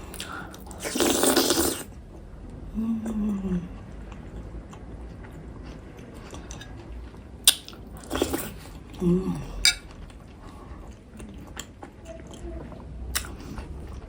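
Someone eating momo in broth: chewing, a short hummed 'mm', and several sharp clinks of a spoon against the bowl. A loud burst of noise lasts about a second, starting about a second in.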